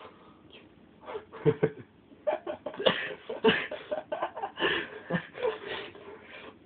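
People's voices in short, irregular outbursts, starting about a second in and fading near the end.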